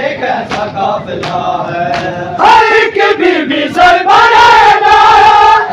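A crowd of men chant a noha in unison, keeping time with matam, hands slapping bare chests about every 0.7 s. The chanting swells louder about two and a half seconds in.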